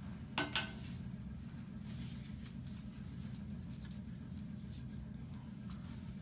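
Handling noise as a respirator mask is pressed to the face and its straps are pulled on: two sharp clicks about half a second in, then faint rustling, over a steady low hum.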